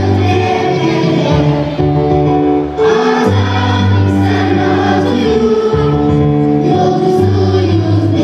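Choir singing over an instrumental backing track, held notes changing every second or so over a steady bass line.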